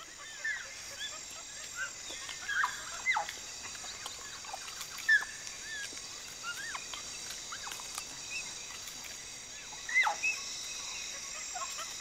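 Forest ambience: a steady, high insect drone with scattered short, high-pitched animal calls, each dropping quickly in pitch. The most prominent calls come about five seconds in and again near ten seconds.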